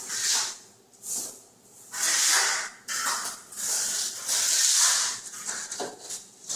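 Steel trowel scraping floor-leveling patch compound across a concrete subfloor in several separate strokes, some short and some drawn out for a second or more.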